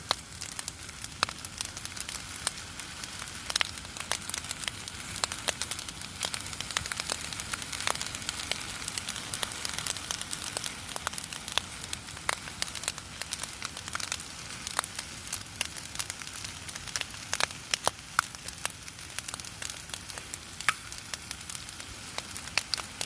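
Rice frying in oil in a pan: a steady sizzle dotted with frequent sharp crackles and pops.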